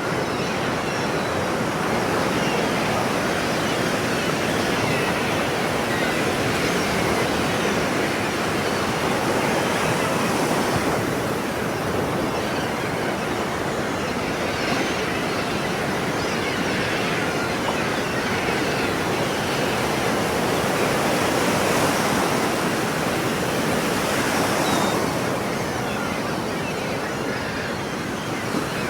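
Ocean waves washing continuously onto a shore, a steady rushing surf that swells and eases slowly every few seconds.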